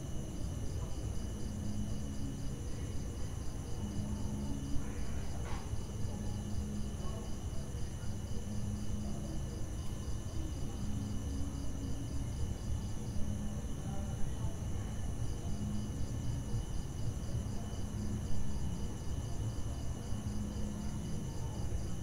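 Crickets chirping steadily at night, one in a fast pulsing trill that stops for a few seconds around the middle, over a low rumble. A few faint knocks come through the ambience.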